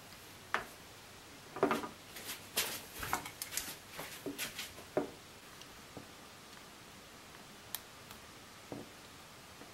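A quick run of light knocks and clicks as a stiff length of 8 mm, 19-core copper cable is handled on a work board and a utility knife is brought to it. Then come a few single soft clicks as the knife blade scores the cable's plastic insulation.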